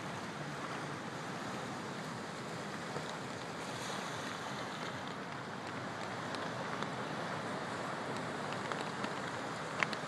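Steady, even wash of wind and water noise at the shoreline, with a couple of short clicks near the end.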